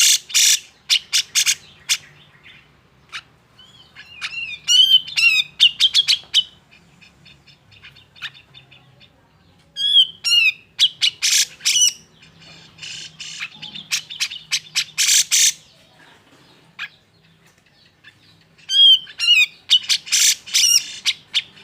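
Grey-cheeked bulbul (cucak jenggot) giving agitated, harsh chattering calls in about five bouts, mixing fast rattling notes with quick falling whistled notes, with short pauses between bouts.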